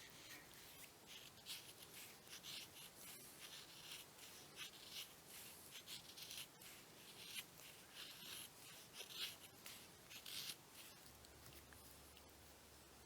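Knife blade shaving thin curls off split wood to make feather sticks: a faint, irregular run of short scraping strokes that eases off near the end.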